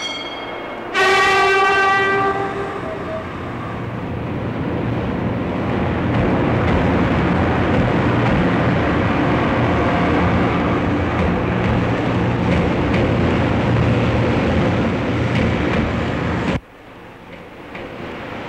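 0 Series Shinkansen departing: a sharp horn blast about a second in that fades over a second or two, then the steady rumble of the train pulling out, building up and cutting off suddenly near the end.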